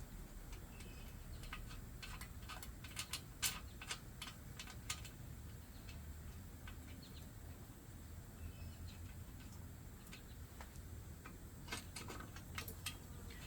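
Scattered light clicks and taps of metal parts being handled as the front wheel's axle retainers are worked into their holes in the fork, bunched in the first few seconds and again near the end.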